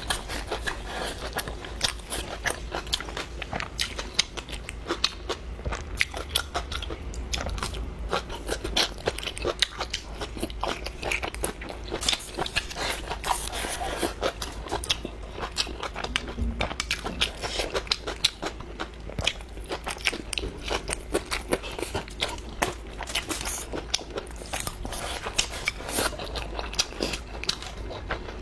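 A person eating close to the microphone: continuous irregular biting, crunching and wet chewing clicks.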